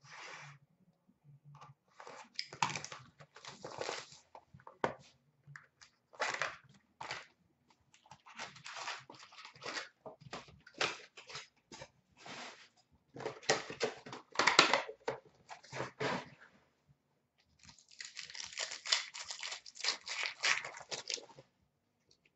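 Trading card pack wrappers being torn open and crinkled, with cards handled in between, in irregular rustling bursts. A few seconds of continuous crinkling come near the end.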